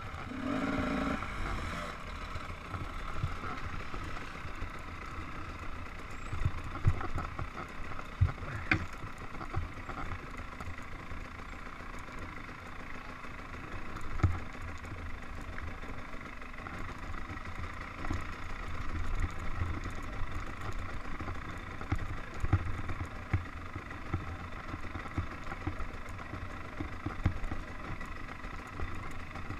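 Dirt bike engine running at low revs on a slow woods trail ride, with a brief rise in revs about a second in. Frequent short knocks and thumps come from the bike going over roots and bumps.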